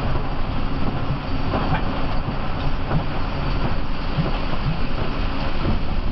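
Cabin noise of a Mercedes-Benz OH 1526 bus driving on a wet road: the steady rumble of its rear-mounted diesel engine under the hiss of tyres on wet tarmac, with a few light clicks.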